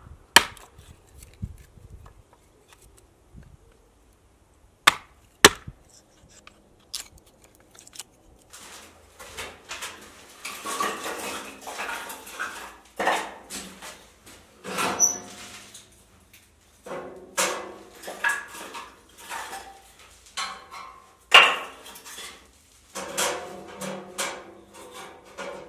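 Hatchet blows splitting kindling on a wooden chopping block: a few sharp cracks in the first seven seconds or so. From about eight seconds in, a busy run of wooden sticks and metal clattering and knocking, with a brief high ping partway through, as kindling is handled and loaded into a small steel camping wood stove in a small concrete room.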